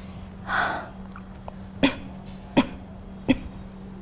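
A woman in pain draws a hissing breath, then makes three short, sharp sounds about 0.7 s apart, over a steady low hum.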